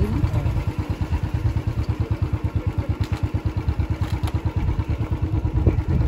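Vehicle engine running with a fast, even low pulsing.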